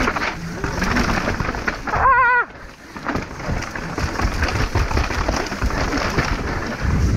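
Mountain bike descending a rough trail at speed: a dense rumble and rattle of tyres and bike over the ground, mixed with wind on the microphone. About two seconds in, a loud, wavering high-pitched tone cuts through for about half a second.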